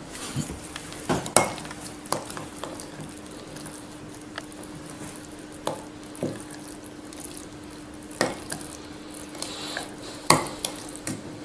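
A spoon stirring oats and yogurt in a glass jar, with sharp clinks of the spoon against the glass at irregular moments. A faint steady hum runs underneath.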